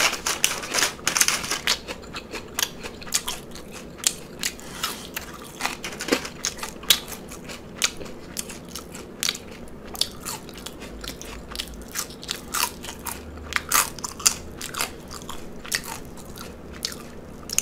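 Loud close-miked chewing of a lettuce-wrapped cheeseburger slider: crisp crunching of lettuce with wet, irregular mouth sounds.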